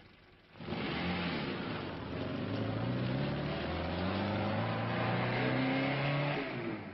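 Car engine pulling away and accelerating, its note rising through the gears over a steady rush of road noise. It starts suddenly about half a second in and cuts off just before the end.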